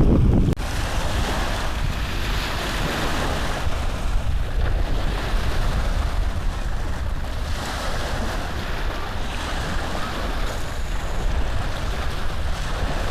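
A steady rushing noise with slow swells, starting with a click about half a second in.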